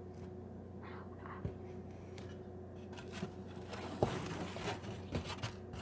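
Steady low hum of a room, with a few light knocks and taps. The sharpest knock comes about four seconds in, with smaller ones after it.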